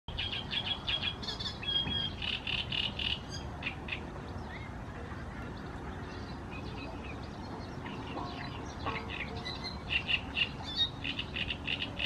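Great reed warbler singing: two phrases of rapidly repeated notes, the first over the opening four seconds or so and the second starting about halfway through, with a quieter gap between.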